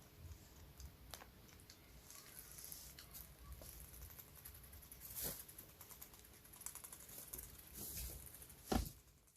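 Guinea pig teeth chattering: faint, irregular rapid clicks, with a few sharper ones. It is the sign that the guinea pig is annoyed.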